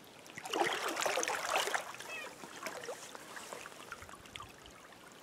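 Shallow stream water splashing for under two seconds, starting about half a second in, as a freshly landed trout is handled in the water; then the stream trickling with small scattered splashes.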